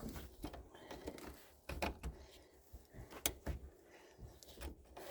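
Scattered clicks, taps and light knocks with rustling, from small parts and hardware being handled and fitted by hand.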